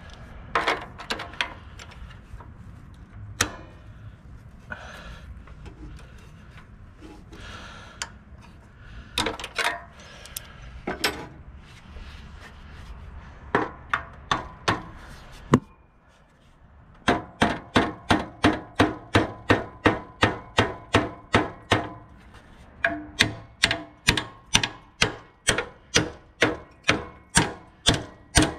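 Hammer pounding the tractor's new radiator bracket down to fit. Scattered single blows at first, then after a short lull a steady run of quick blows, about three a second, with one brief pause partway. Each blow rings briefly.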